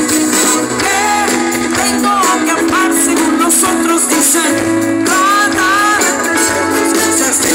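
A live pop-rock band playing through a stage PA: keyboards, electric guitar and drums holding steady chords, with a lead melody line bending in pitch over the top.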